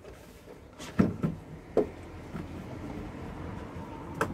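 A few sharp knocks and clunks on a stainless-steel boat refrigerator as its door and handle are wiped down with a cloth: three close together from about a second in, the first the loudest, and one more near the end.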